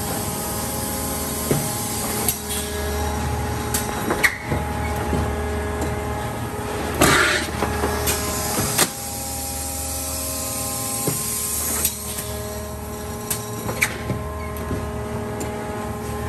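Industrial plastics-processing machinery running with a steady hum and motor tones that shift in pitch every few seconds. Clunks and clicks break in now and then, and there is a brief hiss about seven seconds in.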